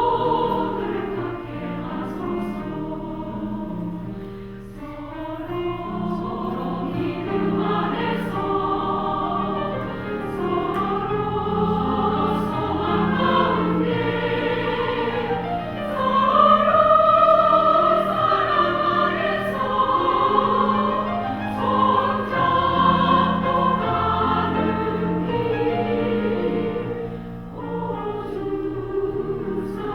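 Women's choir singing a Korean sacred choral song with instrumental accompaniment, in sustained, flowing phrases. The singing swells to its loudest about halfway through.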